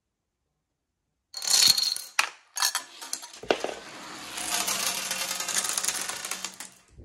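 Dominoes clattering over in a quick chain, followed by a few separate sharp clicks. From about three and a half seconds in, marbles rattle steadily as they roll down a plastic toy track, then stop near the end.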